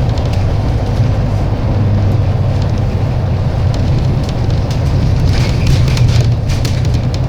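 MAN-engined Alexander Dennis Enviro 300 single-deck bus running: a steady low diesel drone with road noise, and a cluster of short clicks and rattles about five to six seconds in.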